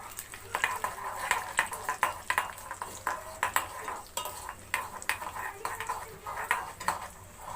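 Urad dal and cumin seeds sizzling in hot oil in a frying pan, stirred with a utensil that gives irregular scrapes and clicks against the pan.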